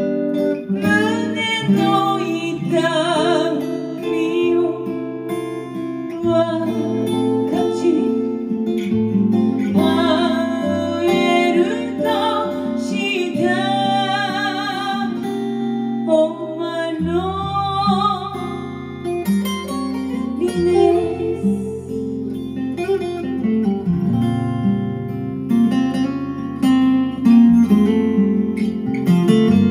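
A woman sings with vibrato over an acoustic guitar. Her voice stops about two-thirds of the way through and the guitar plays on alone.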